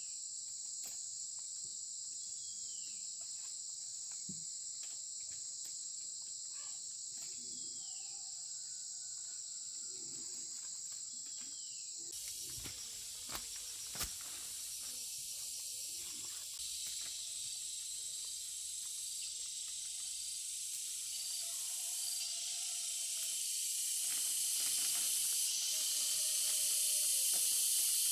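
Steady chorus of insects, crickets or cicadas, with a few short falling chirps. About twelve seconds in it cuts to an even hiss that grows louder.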